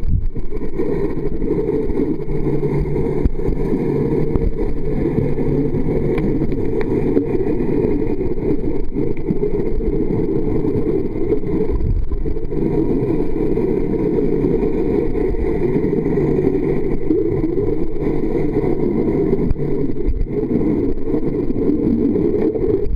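Steady, muffled underwater rumble: water noise picked up by a waterproof pocket camera held below the surface, with most of the sound low and dull.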